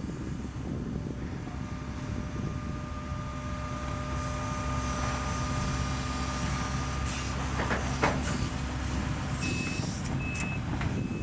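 Case CX130D long-reach excavator's diesel engine running under load with a steady hydraulic whine as the boom and bucket work. A sharp metallic clank about eight seconds in, then a reversing alarm beeps three times near the end.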